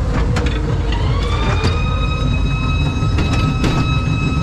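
Ghost train car rolling along its steel track: a steady low rumble with a few scattered knocks from the wheels and rails. About a second in, a high whine glides up in pitch and then holds steady.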